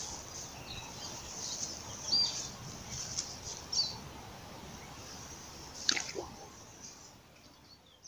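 A small turtle dropped into a pond, making one splash about six seconds in, with short bird chirps in the background.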